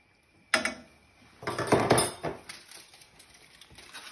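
A metal spoon or fork clinks against a stainless steel frying pan about half a second in, then aluminium foil crinkles as it is laid over the pan and pressed around the rim, with a few lighter ticks and rustles after.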